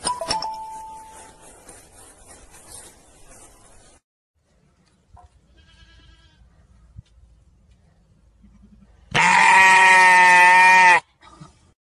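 A sheep bleating once, loud and long, for about two seconds near the end, its pitch wavering slightly through the call.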